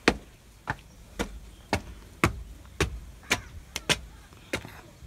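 Footsteps climbing stairs, about two sharp steps a second.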